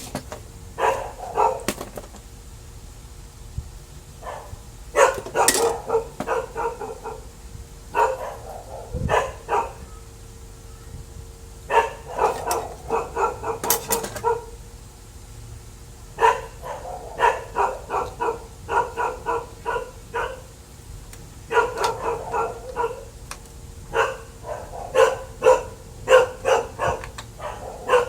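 A dog barking in bouts of quick barks, several a second, with short pauses between the bouts.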